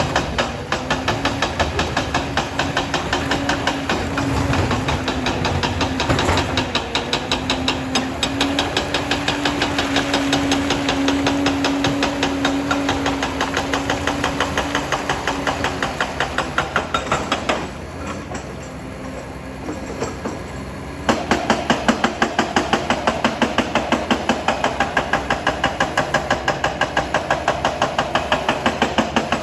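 Liebherr PR 746 crawler dozer's diesel engine running with a rapid, regular clatter and a steady hum. It drops quieter for a few seconds past the middle, then comes back louder.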